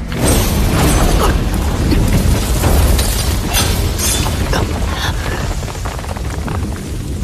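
Sound effect of an energy-blade slash blast: a sudden loud rush of noise with a deep rumble, followed by several sharp cracks and crashes as debris flies, slowly dying down.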